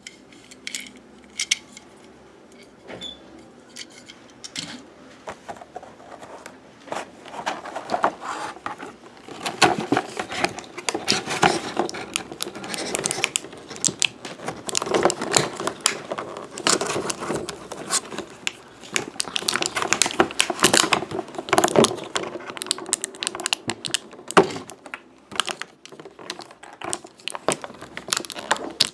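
Small hard plastic toy pieces clicking and clattering as they are handled, sparse at first and much busier and louder from about six seconds in.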